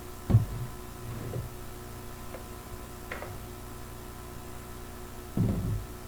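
Dull handling knocks over a steady low hum: a sharp thump a third of a second in, fainter knocks after it, and a longer low thump near the end.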